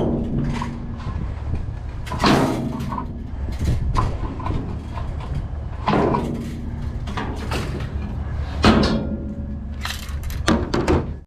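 Trash being rummaged and knocked about inside a metal dumpster: a string of irregular bangs and clatters, several in quick succession near the end, over a steady low rumble.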